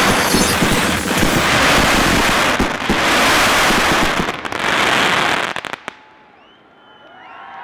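Fireworks finale: a dense barrage of many shells and cakes bursting and crackling at once, which stops abruptly about six seconds in after a few last cracks. A crowd then starts cheering and whooping near the end.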